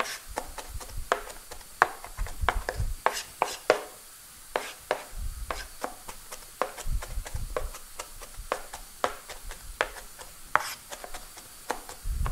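Kitchen knife mincing red onion on a plastic cutting board: a run of quick, irregular chops, about two or three a second, the blade knocking on the board.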